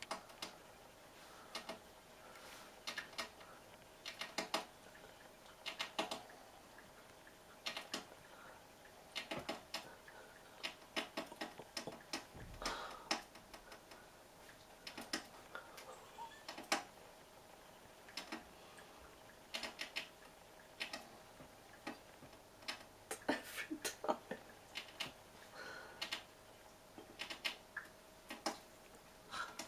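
A sparrow's beak pecking at a pane of glass: sharp little taps in quick clusters of two to five, every second or two.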